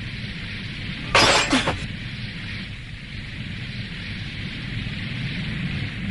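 A cartoon sound effect: one sudden loud crash about a second in, lasting about half a second, over a steady background hiss and low rumble.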